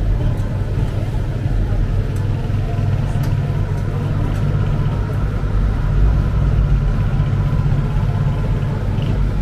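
Steady low rumble of city street traffic, with cars passing and idling.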